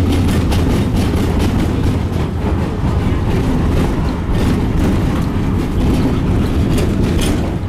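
A tram heard from inside the car while running along the track: a steady low rumble of wheels on the rails and running gear, with scattered clicks and rattles.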